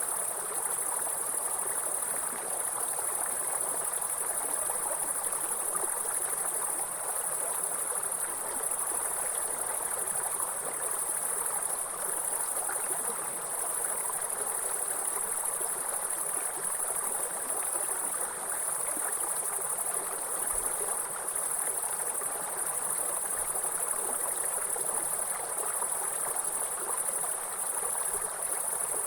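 Mountain stream running steadily, water rushing and burbling over rocks, with a steady high-pitched trill over it.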